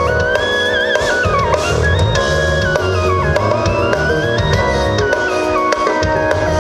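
Music with a drum beat, heavy bass and a lead melody that slides up and down, with no singing.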